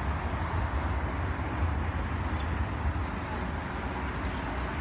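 Steady road traffic noise from a busy road below: a low rumble under an even hiss.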